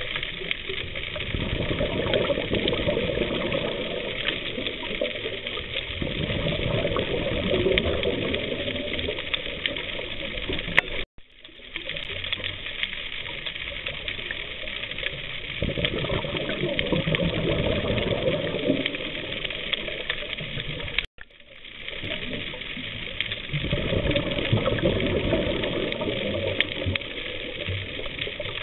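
Underwater rushing noise picked up by a submerged camera, swelling and easing every several seconds. It cuts out abruptly twice, about a third and two-thirds of the way through.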